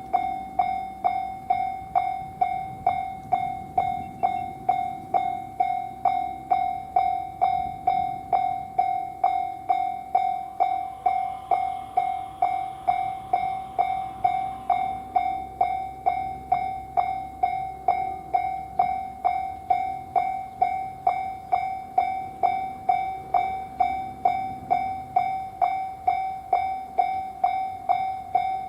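Japanese railway level-crossing warning bell ringing its steady 'kan-kan' at about two strikes a second, a clear ringing tone repeated evenly.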